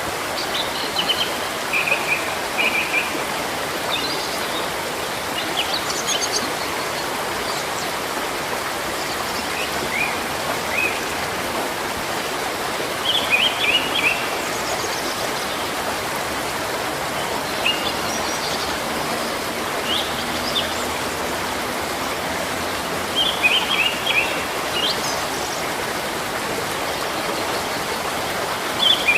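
Steady rush of running water, like a stream, with birds chirping in short clusters every few seconds over it.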